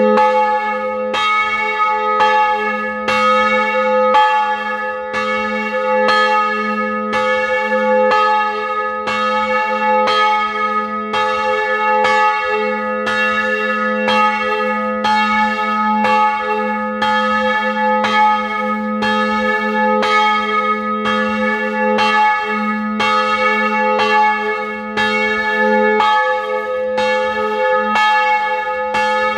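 Single bronze church bell with an A-flat strike note, cast in 2006 by Rudolf Perner of Passau, swinging and struck by its clapper about once a second. A steady low hum rings on between strokes, heard close up in the bell chamber.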